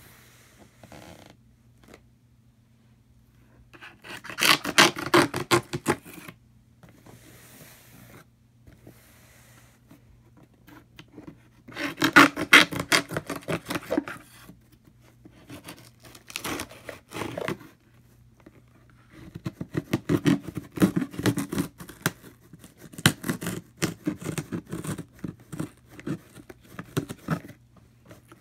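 Hands scraping, scratching and rubbing on a cardboard shipping box and its packing tape, in three bouts of rapid scratchy strokes with quieter pauses between, the last bout long.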